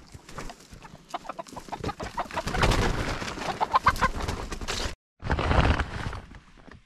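Domestic hens clucking over a run of crackling and rustling, which cuts off abruptly about five seconds in; a moment later comes a short burst of rustling noise.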